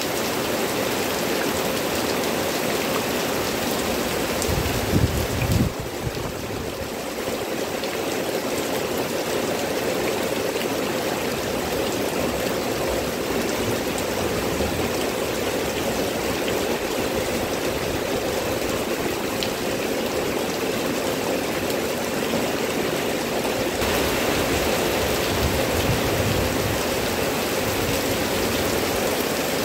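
Heavy tropical rain falling steadily on foliage and ground, a dense even hiss. About five seconds in, two brief low thumps rise above it.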